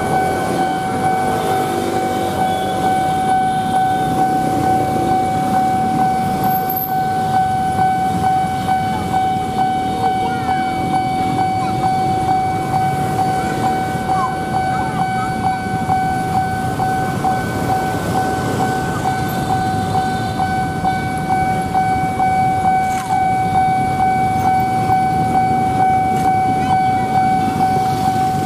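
Railway level-crossing warning alarm sounding one unbroken, steady electronic tone while the crossing flashers are active, over the rumble of waiting motorcycle engines idling.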